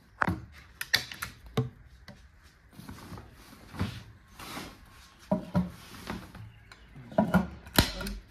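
Scattered wooden knocks, clicks and rubbing as a wooden doghouse is handled and worked on, with a cluster of louder knocks near the end.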